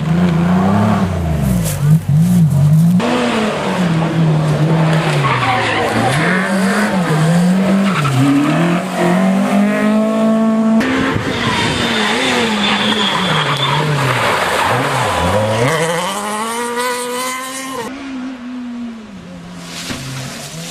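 Rally car engines driven hard in several short clips one after another, the revs rising and dropping again and again through gear changes and lifts off the throttle.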